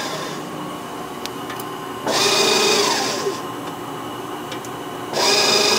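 1990 CCI Citron 16 x 28 surface grinder running with its hydraulic table traversing and automatic cross feed engaged: a steady machine hum, with a loud hissing rush of just over a second recurring about every three seconds as the table cycles.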